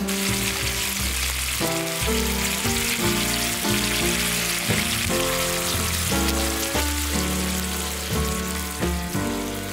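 Thin slices of meat sizzling as they fry in an aluminium camping cooker pan over a gas burner, with an instrumental background melody playing throughout.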